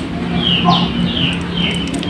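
Bird chirps: short falling calls repeating about twice a second, over a steady low hum.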